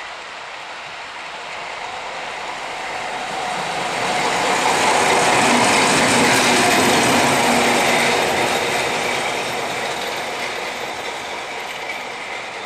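Class 740 diesel-electric shunting locomotive passing close by, its diesel engine running and its wheels rolling on the rails. The sound grows louder to a peak about halfway through, then fades as the locomotive moves away.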